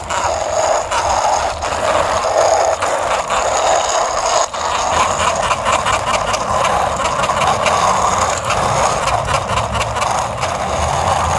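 Small plastic toy scooter pushed by hand along concrete, its wheels and little gear mechanism whirring steadily with a fast ratcheting clatter.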